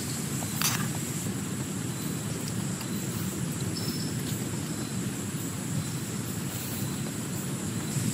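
Heavy rain falling steadily on a tent, with a single sharp tap about half a second in.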